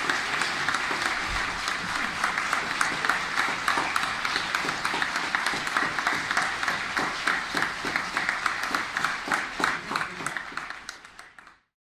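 Audience applauding, many hands clapping densely, fading out near the end.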